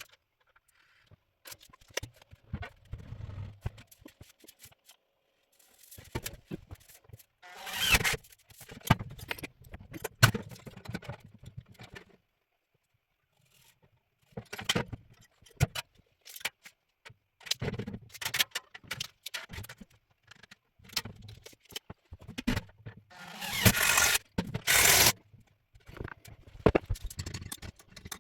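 Hand work on a steel stovepipe: irregular scrapes, clicks and metal clatter as holes are drilled and a spring-loaded cast iron damper is fitted. Two louder scraping bursts of about a second each come about eight seconds in and near the end.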